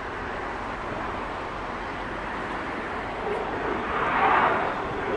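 Distant jet aircraft engine noise: a steady rushing roar that swells to its loudest about four seconds in as the display aircraft passes.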